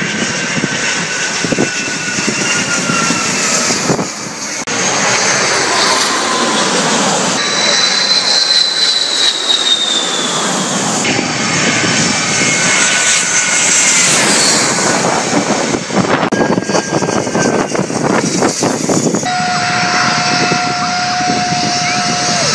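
Jet airliners on low final approach passing close overhead, engines running with a loud rumble and a high whine. The sound breaks off and changes abruptly several times as one approach gives way to another.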